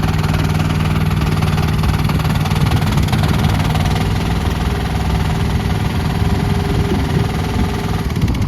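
Gas engine of a new mini tracked skid steer loader running, its steady note becoming rougher and more uneven after about a second.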